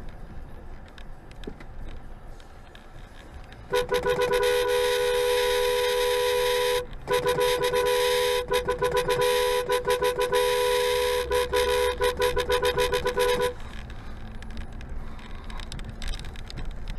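Car horn honking, starting about four seconds in: a long blast with one brief break, then a run of short honks, then another long blast that stops about four seconds before the end. Engine and tyre noise on a snowy road runs underneath.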